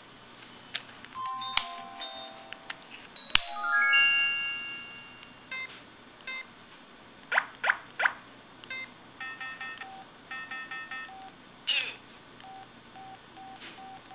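Built-in electronic effect sounds played on an IM-6100 mobile phone. They are a string of short synthesized cues: chime-like chords in the first few seconds, then three quick chirps, a run of rapid blips, a brief sweep and scattered single beeps.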